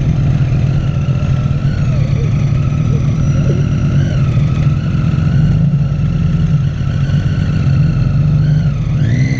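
Rewaco trike's engine running steadily on the move, a loud, constant low drone with a fainter whine above it that rises and falls slightly, climbing near the end.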